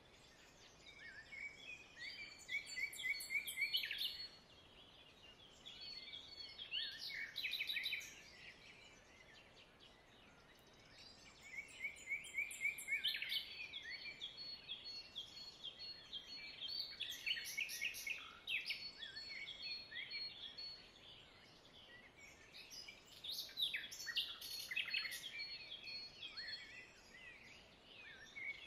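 Songbirds singing: high chirps and trills, several birds overlapping, coming in four bouts with short lulls between, over a faint steady background hush.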